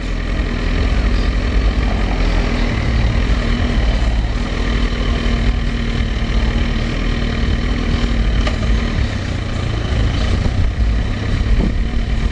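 Kawasaki ZX-10R inline-four engine running steadily at low speed in stop-and-go traffic, with a deep rumble. The engine is overheating because its radiator fan is not cutting in.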